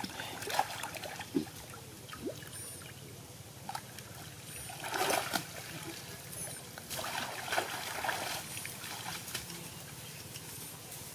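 Muddy pond water splashing and sloshing as a man wades waist-deep and works a basket through it, louder about five seconds in and again around seven to eight seconds. Faint high chirps recur every second or two.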